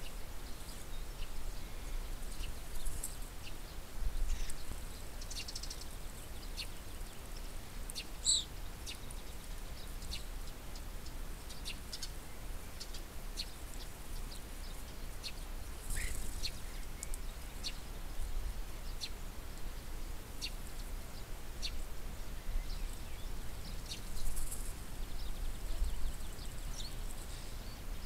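Common starlings calling: scattered short chirps and clicks throughout, with one brief whistle about eight seconds in, over a low steady background rumble.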